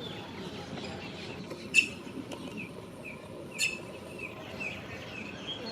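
Birds calling: a run of short, falling chirps repeated about every half second, with two sharp, louder notes about two seconds in and again nearly two seconds later.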